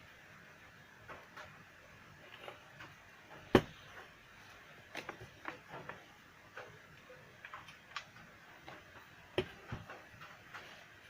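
Irregular light clicks and taps of small hard objects being handled, with one sharp knock about three and a half seconds in and a smaller one near nine and a half seconds.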